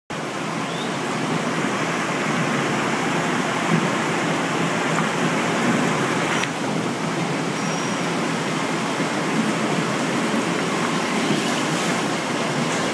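Steady hiss of water spraying from nozzles onto cucumbers on a conveyor washer, mixed with the packing line's machinery running.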